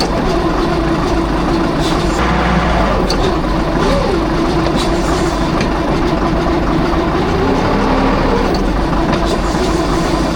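Toyota shovel's engine running steadily with a low rumble and a steady tone that dips and rises in pitch about four seconds in.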